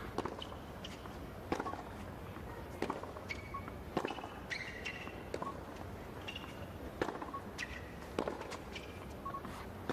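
Tennis rally on a hard court: racquets strike the ball back and forth about every second and a quarter, with short squeaks from the players' shoes between the hits.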